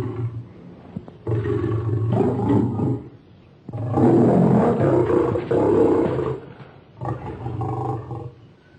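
Lion roaring: the tail of one call, then three roars, the middle one the longest and loudest at about three seconds.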